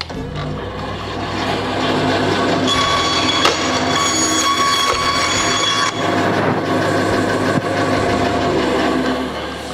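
Benchtop bandsaw running and cutting wooden arrow shafts to length, a steady whining buzz that grows louder about two seconds in and falls away near the end.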